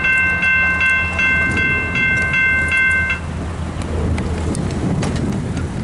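Railroad grade-crossing bell ringing rapidly, struck about two and a half times a second, then stopping abruptly about three seconds in. A steady low rumble runs underneath.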